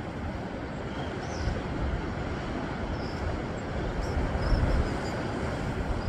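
Small sea waves washing over shore rocks, a steady hiss of surf, with a gusty low rumble of wind on the microphone.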